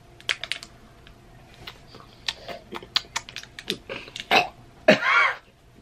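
Plastic stick packet of G Fuel powder crinkling and being tapped as it is emptied into a plastic shaker cup: a run of light crackles and ticks. Near the end come two short vocal noises from the person.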